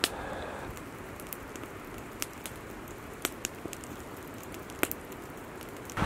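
Wood campfire crackling: a handful of sharp, irregular pops over a low steady hiss.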